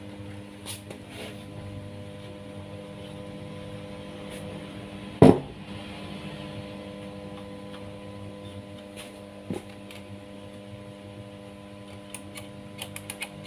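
Steady electrical mains hum from a loudspeaker driven by a power amplifier fitted with a 400-watt mono amp kit, idling with no music playing. There is a loud thump about five seconds in, a smaller one near ten seconds, and a few light clicks near the end.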